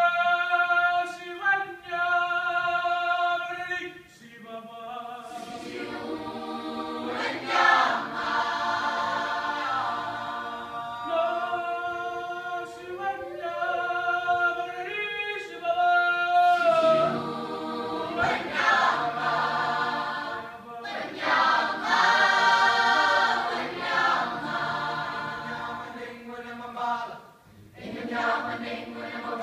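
A mixed choir singing unaccompanied in call and response: a single voice sings a phrase and the full choir answers in chords, twice over.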